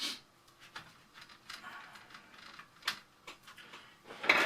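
Scattered light clicks and taps of hands handling a small circuit board and display assembly, with a louder burst of handling noise near the end.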